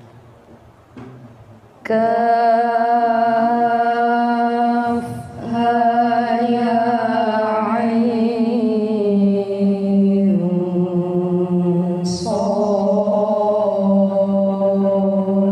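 A man reciting the Quran in melodic tilawah style, drawing out long, high held notes with ornamented slides in pitch. He breaks off briefly for breath about five seconds in and again near twelve seconds.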